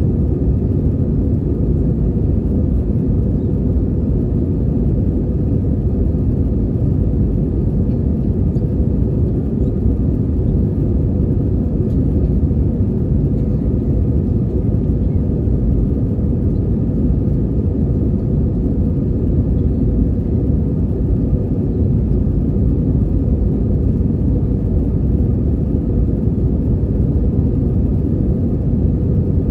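Airbus A320 cabin noise during the climb: a steady, loud low rumble of engines and airflow, with a faint steady hum over it.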